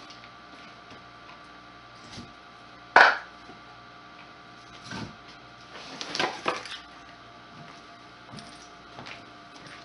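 Split firewood being gathered and handled: a sharp wooden knock about three seconds in, another at five seconds, and a cluster of clattering knocks around six seconds, with lighter clicks between.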